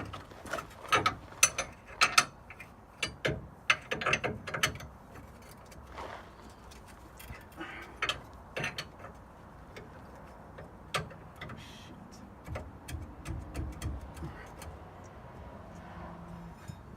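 Hand ratchet clicking in short, uneven runs with metal knocks as a leaf-spring U-bolt nut is worked loose, louder in the first few seconds.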